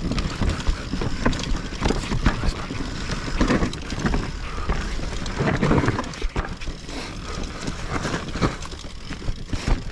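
YT Capra mountain bike ridden along a dirt forest trail: tyres rolling over soil and leaves, with irregular knocks and rattles from the bike over bumps. A steady low rumble of wind buffets the action-camera microphone.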